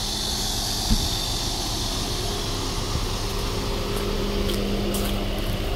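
Steady rushing hiss and low hum heard from inside a car, with one knock about a second in.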